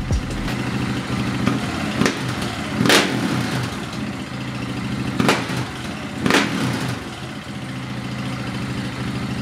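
KTM 690 SMC-R's single-cylinder engine idling through a full Akrapovic exhaust, a steady thumping idle. Four sharp cracks cut through it, about two, three, five and six seconds in, the ones near three and six seconds the loudest.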